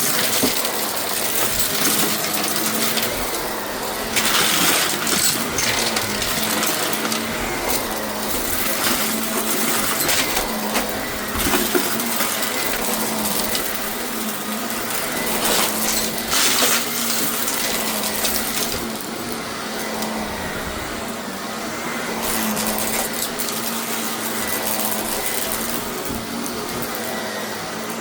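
Shark vacuum cleaner running with a steady motor hum and rush of air, with louder bursts of rattling every few seconds.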